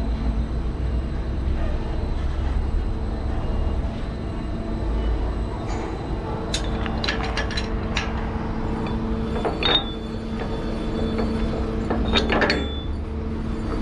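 Truck engine idling with a steady low rumble and hum, with scattered sharp metal clinks. A cluster of clanks about twelve seconds in comes from the chassis twist-lock being worked by hand at the container's corner casting.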